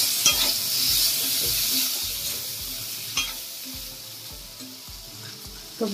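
A spatula stirring and scraping boiled kachnar flowers through sizzling masala in a metal kadai. The sizzle fades over the last few seconds, with an odd scrape of the spatula on the pan.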